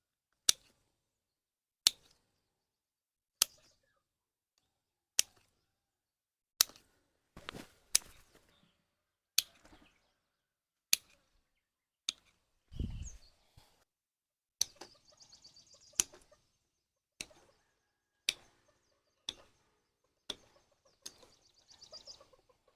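Repeated single sharp tool strikes, one about every second and a half, each ringing briefly, with a dull low thump about halfway through.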